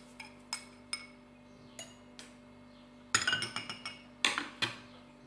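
A metal spoon clinking and tapping against a glass as dried chamomile is spooned in: a scatter of short, sharp clinks with a little ring, thicker in the second half.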